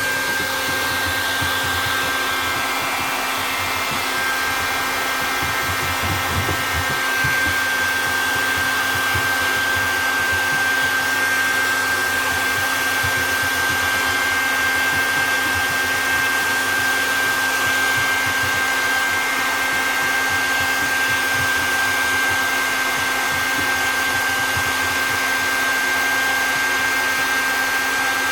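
Hair dryer running steadily: an even rush of air with a thin high whine over it that drops out briefly about three seconds in.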